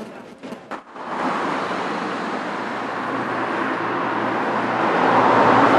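Steady road traffic noise, a wash of passing vehicles that comes in about a second in and slowly grows louder.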